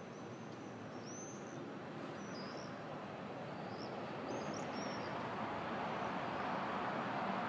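Swallows giving short, thin, high-pitched calls, about half a dozen scattered over the first five seconds. Underneath is a steady city rumble that grows gradually louder.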